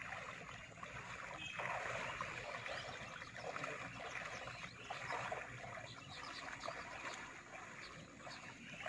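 Water sloshing and splashing as two people wade through waist-deep water, pushing a hand net along.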